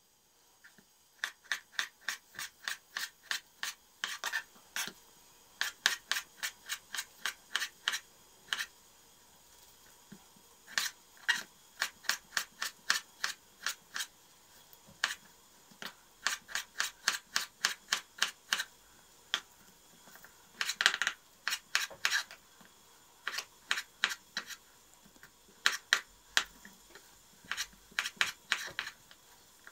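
Chef's knife slicing tomato and then pickled gherkins, each cut ending in a sharp tap of the blade on a plastic cutting board. The taps come in quick runs of about three or four a second, broken by short pauses.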